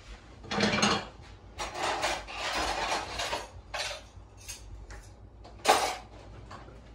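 Kitchenware being handled: clatters of utensils against cookware, a loud one about half a second in and a sharp one near the end, with a longer stretch of continuous handling noise and a few light knocks between them.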